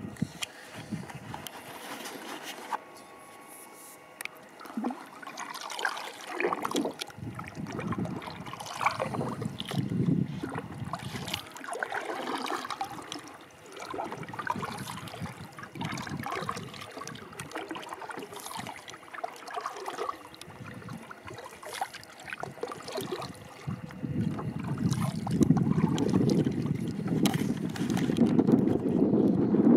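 Water splashing and trickling around a kayak in irregular bursts as the paddle dips. Wind rumbles on the microphone near the start and again from about 24 seconds in.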